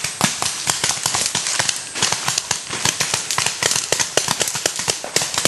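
Paintball markers firing: many sharp pops in quick, irregular succession, several a second, some close and some farther off.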